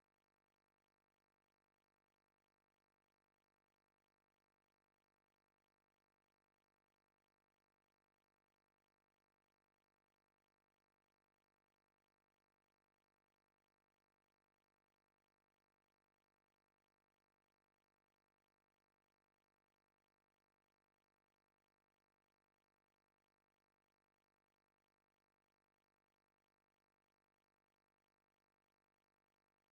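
Near silence: the soundtrack is essentially silent, with only a faint steady noise floor.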